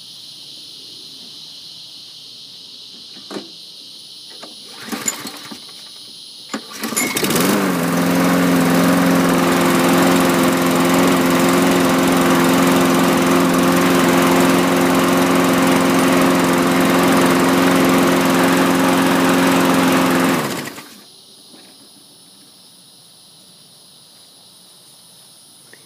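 Toro Recycler mower's 190cc Briggs & Stratton 675-series engine pull-started. It catches easily about seven seconds in, runs at a steady speed for about thirteen seconds, then is shut off.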